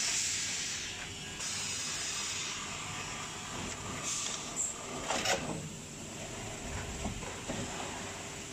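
Air hissing in several short spurts from the pneumatic cylinders of a plywood hot press's automatic loading and unloading rig, with a sharp knock about five seconds in and lower thuds after it as the plywood sheets and machine parts move.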